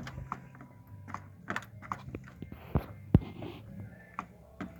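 Scattered metal clicks and knocks from a homemade foot gas pedal and its throttle linkage being worked, with two sharper knocks about three seconds in, over a faint low hum.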